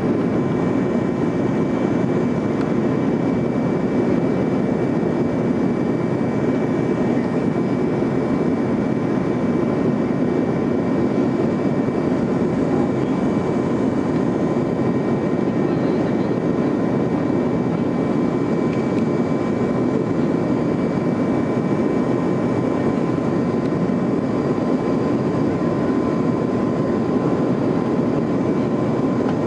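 Boeing 737-200's Pratt & Whitney JT8D turbofan engines heard inside the passenger cabin during the climb after takeoff: a steady rumble with a thin, steady high whine over it.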